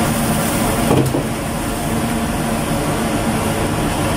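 Steady roar of a gas wok burner and kitchen ventilation under a wok of melted margarine, with a single metal clink about a second in.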